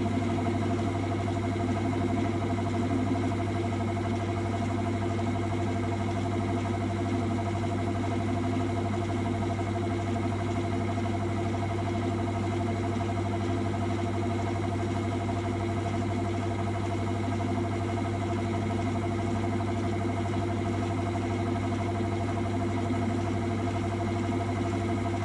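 Metal lathe running at a steady speed with a constant motor hum, no change in pitch, turning down a workpiece.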